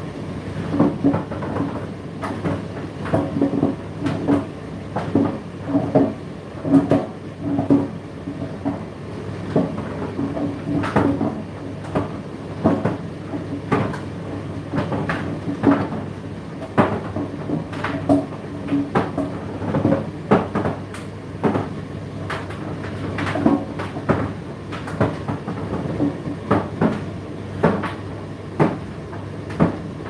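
Indesit IDC8T3 condenser tumble dryer running: a steady motor and fan hum under irregular knocks and thuds, about one or two a second, as the load tumbles in the drum.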